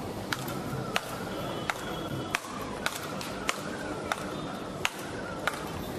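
Speedball rackets hitting the tethered ball in a fast rally: about nine sharp cracks, evenly spaced at roughly two-thirds of a second apart.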